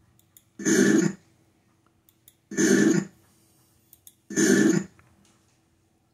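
A short snippet of a recording played back three times over computer speakers, each playback a harsh, noisy burst of about half a second, about two seconds apart, with a faint click just before each.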